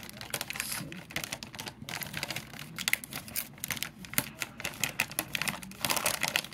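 Dense light clicking and rustling from packaged items being handled, with a few sharper taps partway through.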